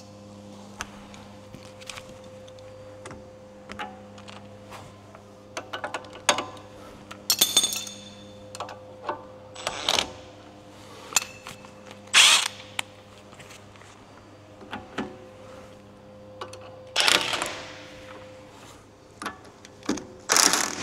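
A cordless power tool run in short bursts, several times, to tighten the bolts of a new front lower control arm, with clicks and clanks of tools on the metal between bursts.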